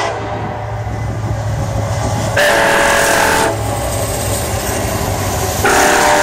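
Lead diesel locomotive of a BNSF freight train passing close, its engine rumbling over rail noise, sounding two blasts of its air horn: one about a second long some two and a half seconds in, and another starting near the end.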